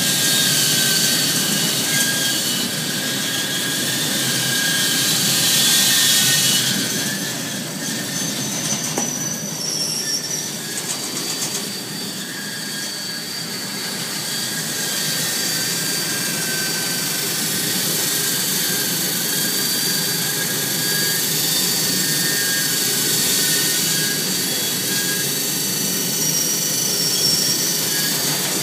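CFS Optiflour flour-breading machine running: a steady mechanical whir of its electric drive motor and wire-mesh conveyor belts, with thin, high steady squealing tones over it. It is a little louder for the first several seconds, then settles.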